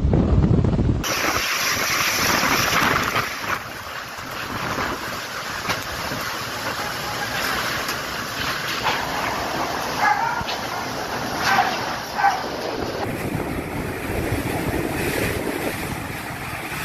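Typhoon wind and rain, a steady rushing noise over several cut-together storm clips, with a few short sharp sounds about two-thirds of the way through.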